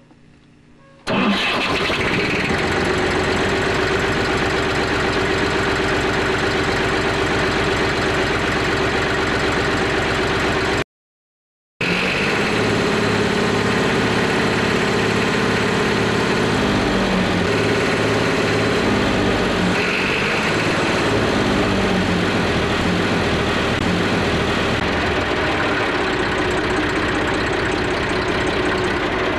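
1963 Fordson Super Dexta's three-cylinder diesel engine comes in about a second in and runs at high revs, then slows and settles to a steady idle in the second half. The sound cuts out completely for about a second partway through.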